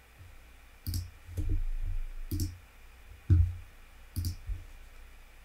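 Computer mouse buttons clicking about five times, each click a sharp tick with a dull knock under it, spaced roughly a second apart.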